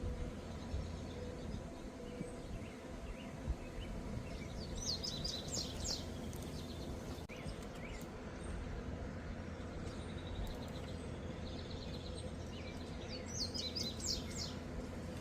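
A songbird singing two short phrases of rapid, high, down-slurred notes, one about five seconds in and one near the end, over a steady low background hum. There is a single sharp click about three and a half seconds in.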